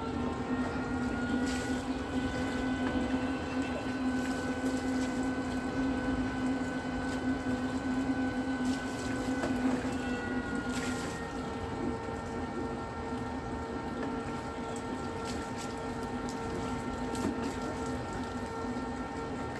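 Steady mechanical hum of a motor running, a low drone with a higher whine above it. The pitch rises slightly about a second and a half in and settles back down around ten seconds, with a few faint clicks over it.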